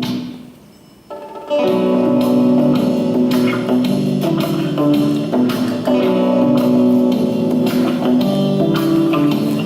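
Music led by plucked guitar: one passage fades away in the first second, and after a short lull a new, louder passage starts about a second and a half in.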